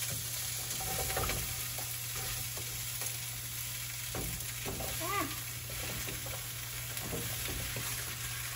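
Zucchini pieces sizzling in a hot frying pan, with scattered light knocks as pieces are tipped in and stirred.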